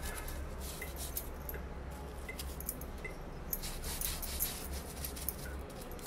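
Small brush scrubbing a plastic washing-machine lint filter: a run of short, irregular scratchy strokes over a low steady hum.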